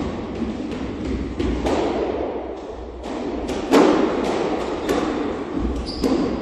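Squash ball knocks as a rally starts: the ball is struck by a racket and hits the court walls, with a sharp loudest knock a little past the middle and several quicker knocks after it.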